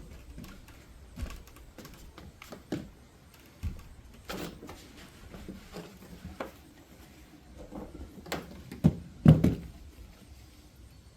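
Scattered knocks and clunks of hard objects being handled and set down, about a dozen irregular hits, the loudest two close together about nine seconds in.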